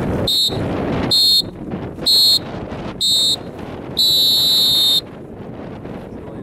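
Electronic race-start horn counting down: four short high beeps about a second apart, then one long beep of about a second, the starting signal of a dinghy race. Wind rumbles on the microphone and water rushes underneath.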